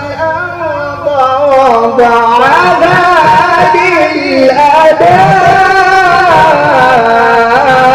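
A man's voice reciting the Quran in a drawn-out, melodic tajweed style, holding long notes with ornamented turns in pitch. The voice gets louder about a second in.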